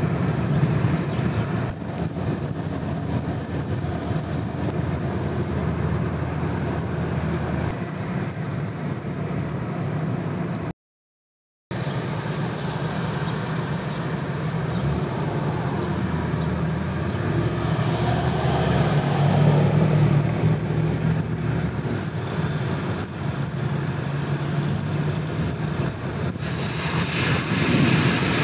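Steady driving noise of a car on the road, a rumble of tyres and engine, with the sound cutting out completely for about a second near the middle.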